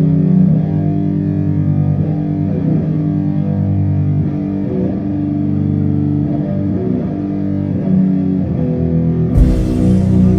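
Doom metal band playing live: heavily distorted electric guitar and bass sustain a slow, low droning riff. Near the end a sudden crash comes in, and the drums and cymbals keep going after it.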